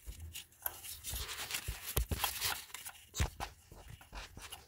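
Hand work on engine parts in a BMW Z3 engine bay, heard as irregular small clicks, knocks and scrapes, with the sharpest knocks about two seconds in and just after three seconds.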